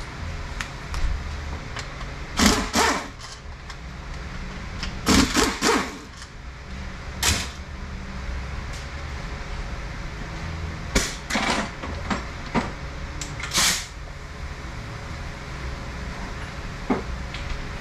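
Hand or power tools working the Torx bolts on the back of a Mercedes 722.6 (NAG1) automatic transmission: half a dozen short bursts of tool noise, each under a second, over a steady low hum.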